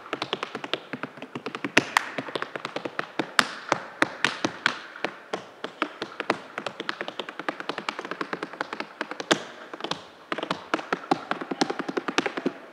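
Tap shoes striking a stage floor in an unaccompanied tap solo: fast, uneven rhythms of sharp taps with a few louder accents, and a brief pause about ten seconds in.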